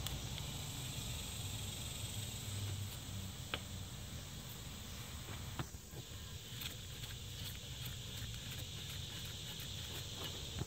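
Quiet hand work on the rear brake caliper's upper bolt as it is unscrewed: a couple of light clicks, then faint irregular ticking in the second half, over a low steady background hum.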